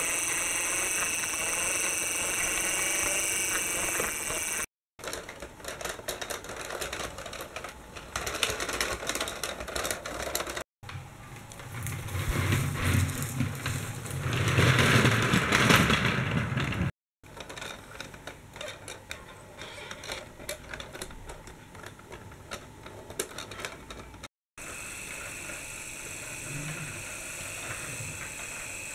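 Small electric motors and gears of toy trams whirring and rattling as they drive, in several short clips whose sound changes abruptly with brief silent breaks; loudest in the middle clip, with a low hum under the rattle.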